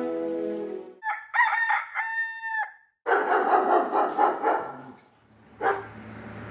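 A rooster crows once, a few short notes then a long held one, followed by about two seconds of busier clucking-like calls. A single sharp click comes near the end.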